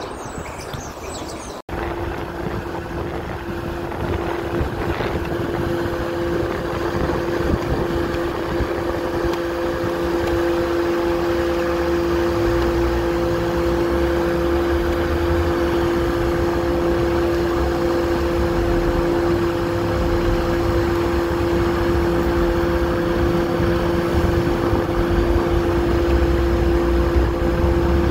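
Electric blower fan of an inflatable tube man running with a steady hum, over a low rumble.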